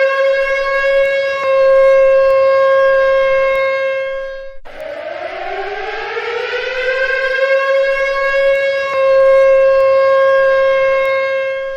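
Civil defense siren sounding an attack warning: a loud tone that rises in pitch and then holds steady for several seconds. About four and a half seconds in it cuts off abruptly and at once begins its rise again.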